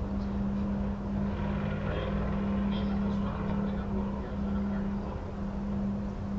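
Storm wind rumbling on the microphone, with a steady low hum underneath and a faint rise in higher noise a second or two in.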